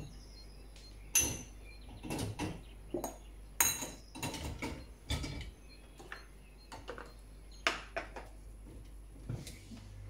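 Drinking glasses being set into a dishwasher's wire top rack: a dozen or so separate clinks and knocks of glass against the rack, irregularly spaced.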